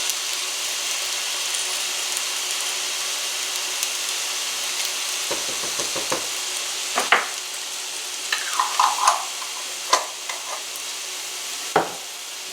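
Ground beef, pasta and tomatoes sizzling steadily in a skillet, with several sharp knocks and scrapes of a utensil against the pan in the second half as the mixture is stirred.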